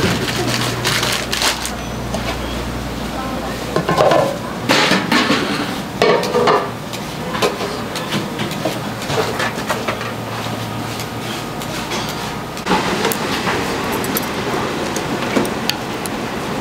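Irregular clatter of dishes and metal utensils over steady background noise, with a low hum in the first few seconds.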